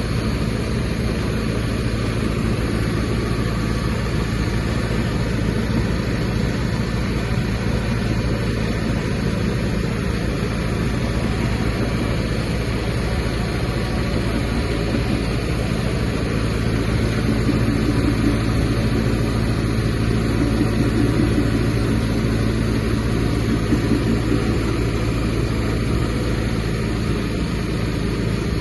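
Automatic briquette-pressing machine running with a steady mechanical drone and low hum, a little louder for a stretch past the middle.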